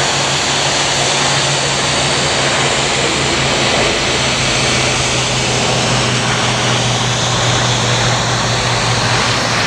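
Douglas DC-3's twin radial piston engines and propellers droning steadily as it flies low past on its landing approach.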